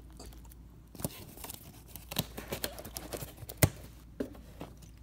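Scattered light clicks and crackles of handling: a plastic water bottle and the cardboard rig holding a chicken wing being shifted by hand, with one sharper click about three and a half seconds in.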